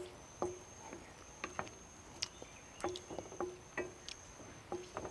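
Wooden spatula knocking and scraping against a nonstick frying pan while stirring garlic, shallots and red capsicum frying in oil, in irregular taps, some with a short ring from the pan. A thin high steady tone sounds behind, breaking off every second or so.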